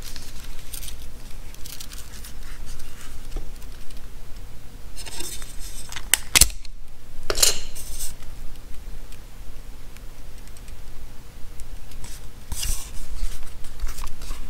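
Handling noise of a camera and its small parts: scattered clicks, scrapes and rustles, with two sharper clicks about six and seven and a half seconds in.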